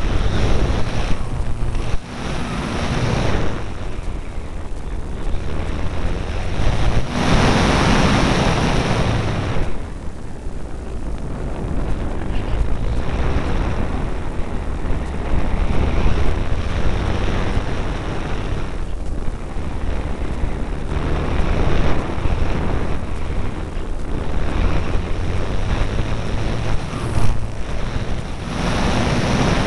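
Wind rushing over the microphone of a camera riding on an E-flite Apprentice electric RC trainer plane in flight, with a steady low hum from its electric motor and propeller underneath. The rush swells several times as the plane manoeuvres, loudest about eight seconds in.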